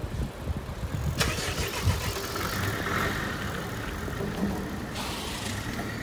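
A car engine running close by in street traffic over a steady low rumble, with one sharp click about a second in.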